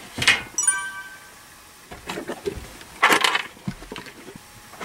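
Short rustles and knocks of a singer getting up and leaving a small vocal recording booth, with a brief ringing tone about half a second in and a busier burst of handling noise about three seconds in.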